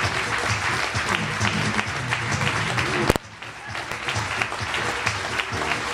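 Theatre audience applauding over background music. About three seconds in there is a sharp click and the clapping drops away, then builds back up with the music.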